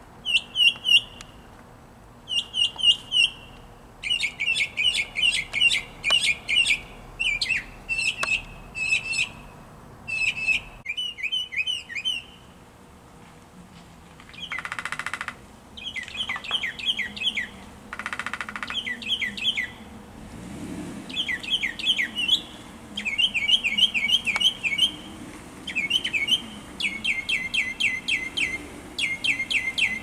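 Northern mockingbird singing: phrase after phrase of quick, repeated high notes, each phrase repeated several times before the bird switches to another, with short pauses between. Twice in the middle a harsh, buzzy sound lasting about a second breaks in.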